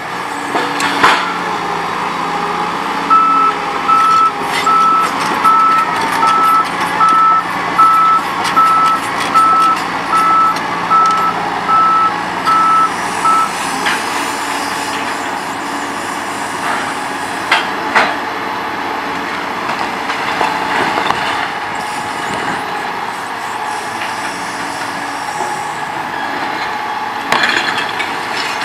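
Liebherr R950 Demolition excavator working a building down: its diesel engine runs steadily, with sharp crashes of breaking and falling masonry now and then, the last near the end. From a few seconds in, a reversing alarm beeps evenly for about ten seconds.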